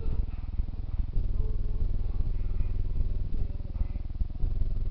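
A motor running with a steady, low, rapidly pulsing rumble.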